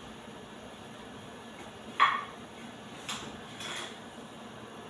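Kitchenware being handled at a counter: one sharp clack about two seconds in, then a couple of softer knocks.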